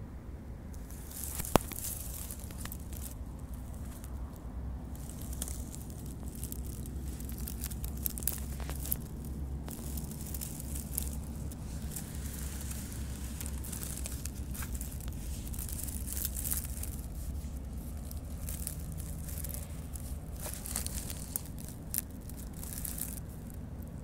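Dry crackling rustle of pine-needle forest litter being disturbed close to the microphone, with scattered small clicks and one sharp snap about a second and a half in.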